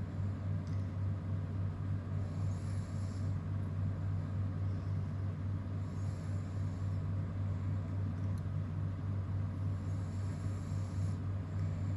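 A steady low hum, with a soft breathy hiss that swells and fades about every three to four seconds, three times: the slow breathing of a sleeping man.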